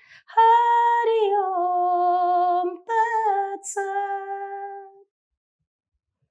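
A woman chanting a Sanskrit mantra unaccompanied, in long held notes: one long note that slides down in pitch, then two shorter ones, stopping about five seconds in.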